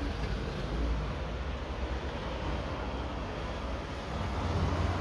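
Road traffic noise: a steady hiss of passing vehicles over a deep low rumble that swells slightly near the end.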